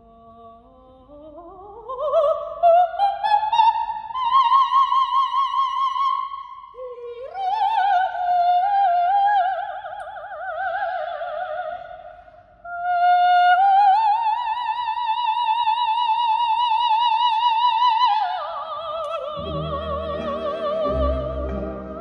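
Operatic soprano voice singing alone: a long slide up from a low note to a high held note with wide vibrato, then more sustained high notes. About three seconds before the end the orchestra comes in under her.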